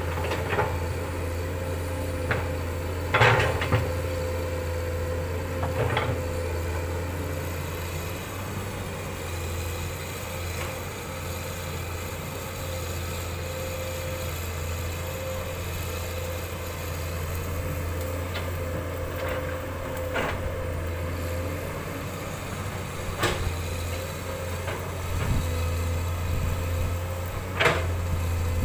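Komatsu PC200 hydraulic excavator's diesel engine running steadily as it works, a constant low drone with a steady whine on top. Several short, sharp knocks break in, the loudest about three seconds in, and others near six seconds and toward the end.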